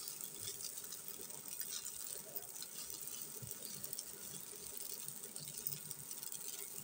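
Wooden spatula stirring fusilli pasta in a nonstick pan: faint scraping with scattered light clicks against the pan.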